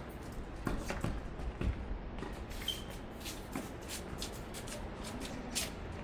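Tennis play on an outdoor court: shoes scuffing and shuffling on the court surface, with a string of short, sharp clicks and knocks, the loudest about a second and a half in.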